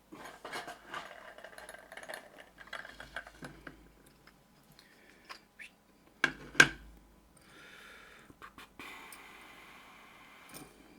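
Small metal clicks, taps and rattles as a picked lock and hand tools are handled, with two sharp knocks about six seconds in, then a stretch of steady scraping hiss near the end.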